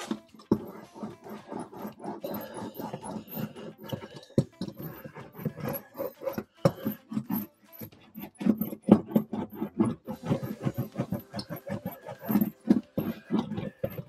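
Irregular knocking, crinkling and rubbing as butyl sound-deadening sheet is pressed and worked onto the sheet metal inside a car's rear fender cavity. The knocks come in quick uneven runs, thickest in the second half.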